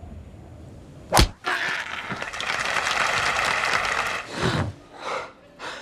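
A single sharp, loud crack about a second in, then a crowd's dense clapping and cheering for about three seconds, which dies down into a few shorter swells.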